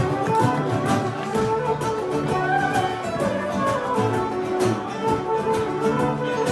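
Irish traditional session music: fiddles playing a lively tune together over guitar strumming, with an even, steady beat.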